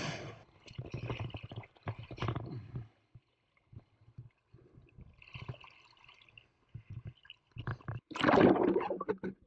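Shallow seawater splashing and sloshing as a hand net is worked through the water, in irregular bursts. About eight seconds in comes the loudest part, a second or so of gurgling, bubbling water as the microphone meets the surface.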